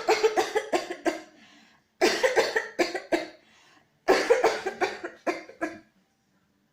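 A woman's coughing fit: three bouts, each a quick run of sharp coughs lasting about a second and a half, about two seconds apart.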